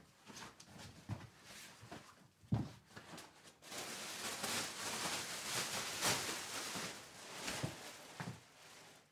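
Belongings being handled and packed by hand: rustling of cloth and other items, with several soft thumps and knocks, and a longer stretch of busy rustling from about four to eight seconds in.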